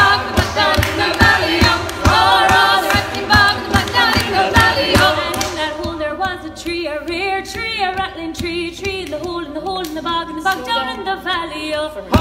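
A group of women singing a traditional Irish song together unaccompanied, with sharp percussive beats keeping time.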